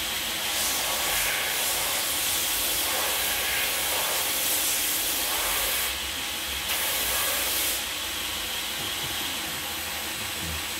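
Belt sander running with a steady hiss as the glued edge of a leather knife sheath is ground flat against the belt. The hiss is louder from about a second in to six seconds and again briefly around seven seconds.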